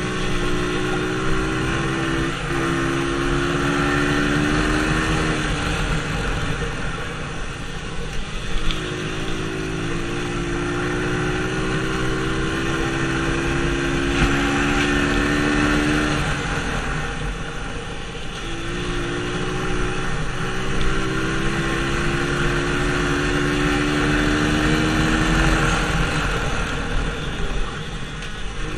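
Dirt bike engine, heard from on the bike, climbing steadily in pitch under throttle down each straight and dropping off as the rider backs off for each turn, three times over.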